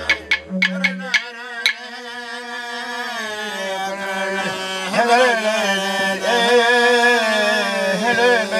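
Clapsticks striking a quick even beat that stops about a second and a half in, while the yidaki drone ends about half a second in. Then a man's voice chants one long phrase of manikay song unaccompanied, wavering and sliding in pitch.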